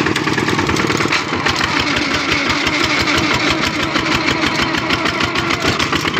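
Kubota RT-series two-wheel tractor's single-cylinder diesel engine running steadily as the tractor drives along, with rapid, even firing pulses.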